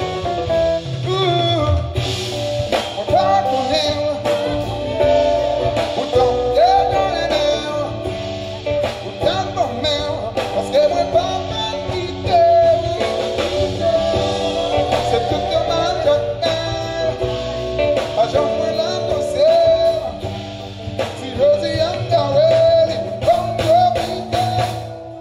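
Live band music: an instrumental stretch with a lead guitar melody over bass and percussion. It drops away right at the end.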